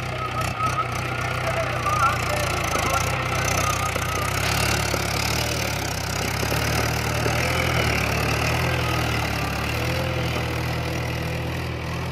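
Mahindra 475 DI tractor's four-cylinder diesel engine running steadily under load as it pulls a cultivator through dry soil.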